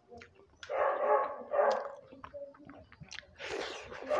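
A dog barking twice, about a second apart, over scattered chewing clicks picked up close by a clip-on microphone; a short burst of hiss near the end.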